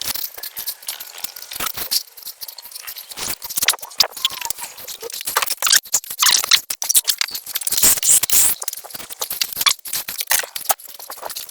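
Hand scrubbing a plastic headlight lens with a headlight-restoration oxidizing wipe: irregular scratchy rubbing with many small clicks, busiest about halfway through.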